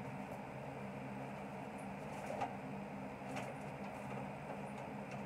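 Steady low background hum with a few faint clicks, as of things being handled, about two and three seconds in.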